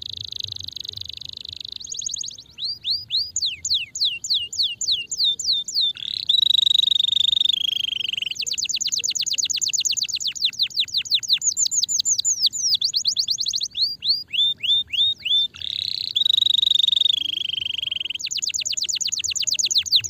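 Domestic canary singing a long, unbroken song of fast trills made of rapidly repeated falling notes. The trills are broken twice, about six seconds in and again about sixteen seconds in, by a held whistle that slides down in pitch.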